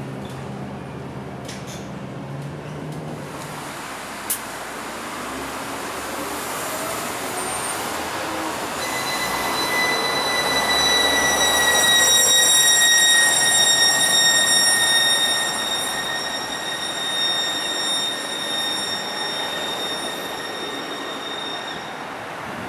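MAN NL323F A22 city bus running with a loud, high-pitched whine that sets in about nine seconds in and holds, sagging slightly in pitch. The vehicle noise under it swells and then eases. The whine is an unusual noise from the bus.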